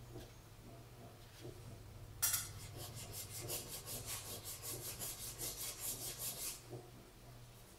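Hand plane shaving a bamboo fly-rod butt strip in a steel planing form: after about two seconds of near quiet, a run of quick repeated strokes, about four a second, lasting some four seconds.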